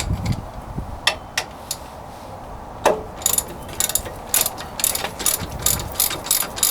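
Hand ratchet and socket clicking as a loosened wheel hub mounting bolt is turned out. A few single clicks come first, then a sharper knock about three seconds in, then a fast run of clicks at about four or five a second.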